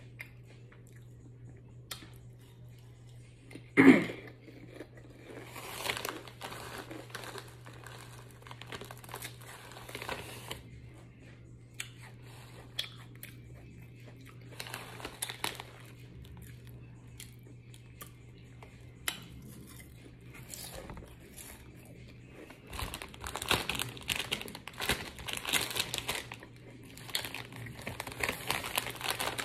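Close-up eating sounds: chewing and crunching, with a plastic snack bag crinkling in bursts that are busiest near the end. A single short, loud sound about four seconds in.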